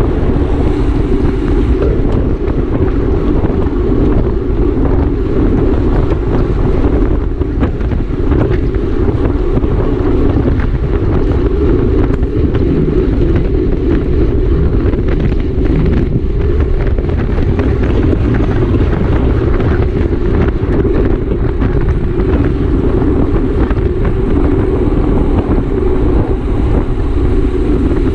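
Wind buffeting the camera's microphone as a racing bike rides at speed, a loud steady rumble with no let-up.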